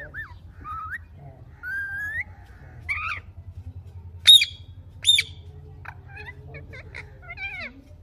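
Indian ringneck parrots calling: a few whistled, sliding notes, then two loud, sharp screeches about a second apart near the middle, then a run of short chattering calls. A steady low hum runs underneath.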